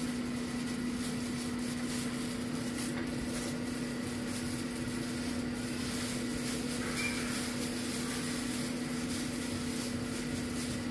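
Air fryer running: a steady electric hum with fan noise.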